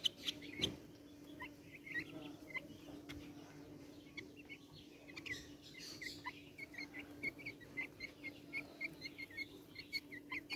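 Young chickens peeping: short, high chirps, sparse at first and then coming about twice a second in the second half, over a steady low hum.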